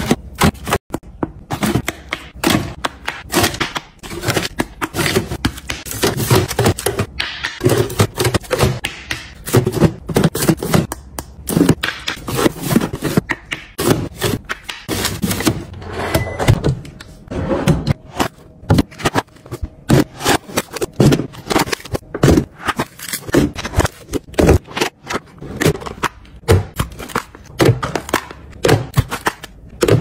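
Plastic food packets, white plastic dividers and lidded plastic storage containers being handled and set into a pull-out refrigerator drawer. The sound is a close, continuous stream of clicks, taps and plastic-on-plastic knocks and scrapes.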